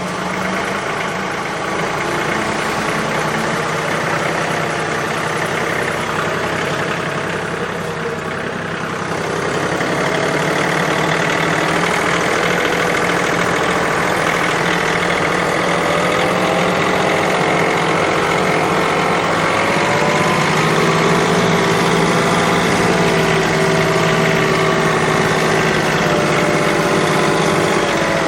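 An engine running steadily, its pitch drifting slightly, a little louder from about ten seconds in.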